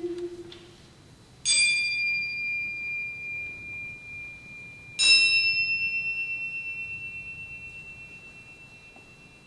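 Crotales (antique cymbals) struck twice, at two different pitches, about three and a half seconds apart, each note ringing on and slowly dying away; a held low note fades out just before the first strike.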